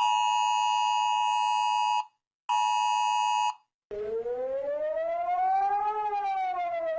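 Emergency-alert sounds: a steady two-tone electronic attention tone sounds for about two seconds, breaks off, then sounds again for about a second. A siren then starts low, rises slowly for about two seconds and begins to fall again.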